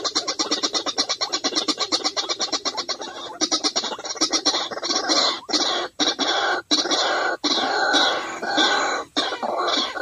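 White-breasted waterhen calls played from a small speaker as a trapping lure. The first three seconds are a fast, even series of notes at about six a second. After that come harsher, irregular croaking calls broken by a few short gaps.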